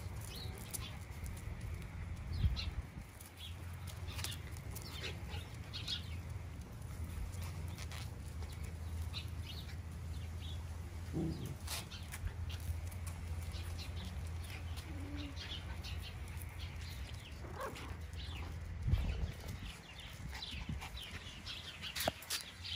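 Miniature Schnauzer puppies and adult dogs playing: scattered short squeaks and scuffles over a steady low hum, with a few brief louder sounds along the way.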